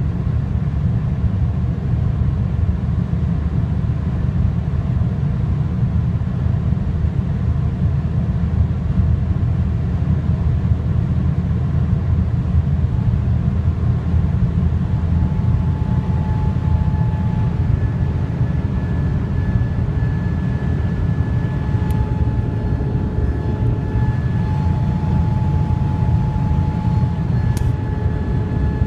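Road and wind noise inside a BMW F30 320i at high speed, a steady heavy rumble. About halfway through, a thin, high-pitched steady whine comes in and holds: the unexplained high-frequency noise that appears above 200 km/h.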